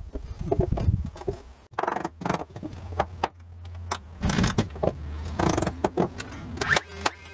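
Irregular knocks and clatter of carpentry work while framing, over a steady low hum that starts about two seconds in and stops near the end.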